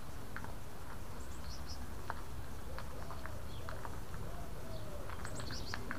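Birds calling outdoors: short high chirps twice, and a run of lower arched calls through the middle, over a steady low rumble and scattered light clicks.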